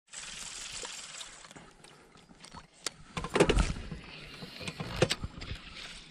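Handling noise aboard a fishing boat: a few scattered light knocks and clicks, about a second, three seconds and five seconds in, over a faint steady hiss.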